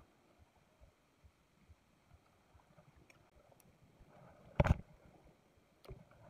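Small spinning reel cranked on a lure retrieve, giving soft low ticks about two or three times a second. A loud knock comes about four and a half seconds in as the rod is swung, and a smaller knock follows near the end.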